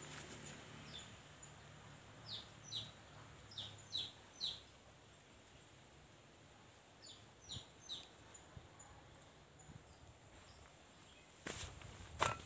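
A bird calling in short, quick, downward-sweeping chirps, in two runs of several notes, over a faint steady high insect drone. Near the end come a couple of sharp crackling knocks, like leaves or plastic being handled.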